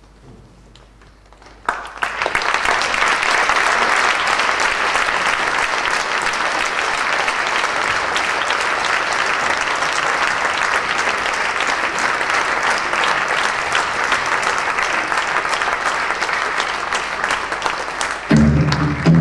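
A theatre audience breaks into steady applause about two seconds in, after a brief lull, and keeps clapping; this is the ovation at the end of a play. Near the end, music starts up over the clapping.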